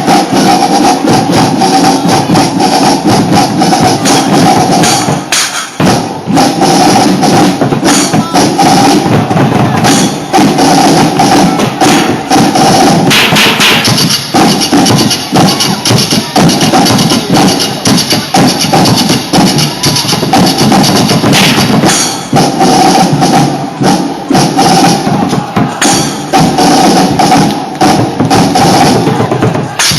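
Drumline performing: rapid, dense drum strokes in a fast rhythm over music, with a brief drop in the sound about five and a half seconds in.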